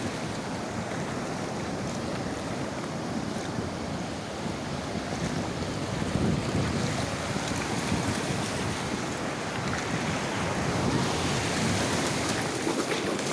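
Surf washing onto a beach, with wind buffeting the microphone; the rumble swells a little about six seconds in.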